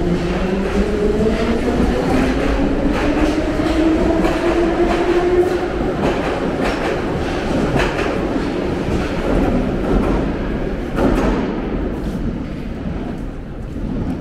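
Metro train pulling out of the station: its traction motors whine, rising in pitch through the first five or six seconds as it accelerates, while the wheels clatter over the rail joints. The sound thins out near the end as the train leaves.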